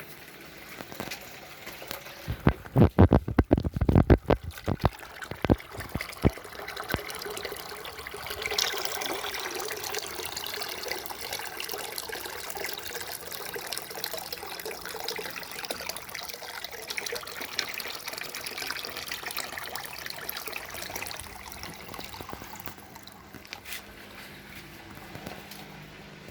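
A run of loud knocks and clatters, then a steady rush of water in a washing machine during its test cycle.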